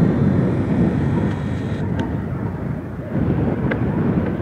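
Wind buffeting the microphone: an uneven low rumble, with a faint high hiss that cuts off abruptly about two seconds in.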